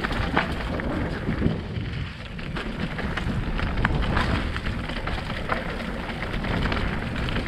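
Mountain bike riding fast down a rocky dirt singletrack: tyres crunching over stones and the bike rattling with many small knocks, over a constant low rumble.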